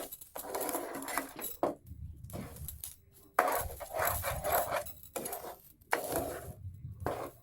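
A spoon scraping and clinking against a frying pan as it stirs a thick ginger paste and sugar mixture, in several stirring spells with short pauses between them.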